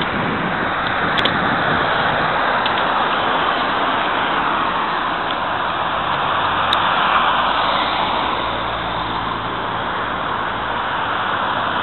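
Steady rush of road traffic: car tyres and engines on the street, swelling slightly around the middle.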